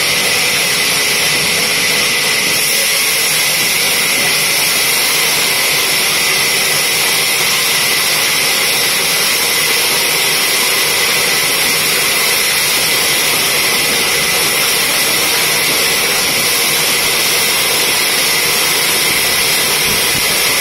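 Horizontal band sawmill running and sawing a log on its carriage: a loud, steady, high-pitched hiss that holds without change throughout.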